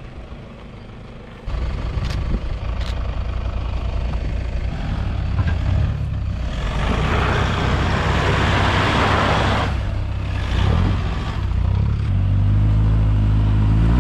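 Toyota Hilux four-wheel-drive utes' engines working under load as they climb a steep dirt track. A loud rush of tyres scrabbling over loose dirt and gravel comes in the middle, and a steadier, stronger engine note near the end.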